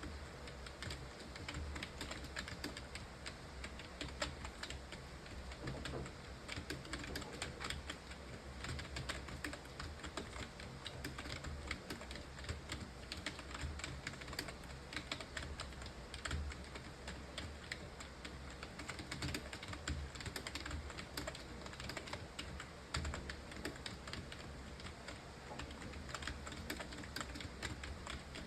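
Computer keyboard being typed on continuously: a fast, unbroken stream of keystroke clicks, as in a timed typing test, over a steady low hum.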